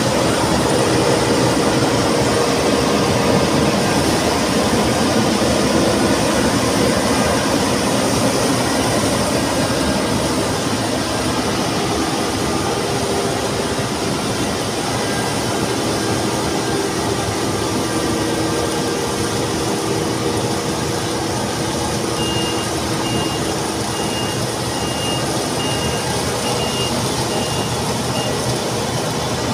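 Claas Tucano 560 combine harvester running at work, cutting and threshing, a dense steady machine rush with a low engine hum that eases off a little as it moves away. In the last third a high beep repeats about every two-thirds of a second for some six seconds.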